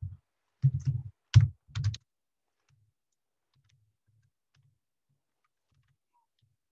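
Typing on a computer keyboard: a quick run of loud key strikes in the first two seconds, then scattered, much fainter keystrokes.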